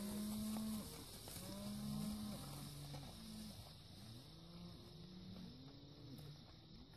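Cattle mooing: a run of long, drawn-out moos that rise and fall in pitch, some overlapping. The first, held steady in the opening second, is the loudest.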